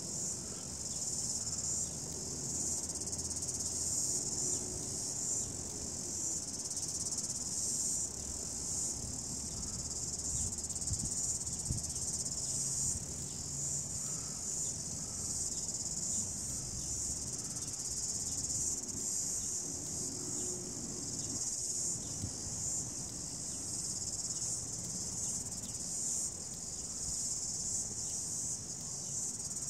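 Steady, high-pitched insect chorus that carries on without a break, over a faint low rumble.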